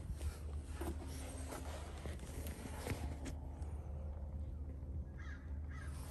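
A horse standing on concrete while a hoof is held up: a few light knocks and scuffs from hooves and boots, over a low steady hum.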